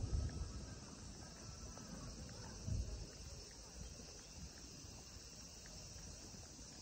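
Steady high-pitched drone of insects, a cicada chorus in the park's trees. Two low thumps sound over it, one at the very start and one a little under three seconds in.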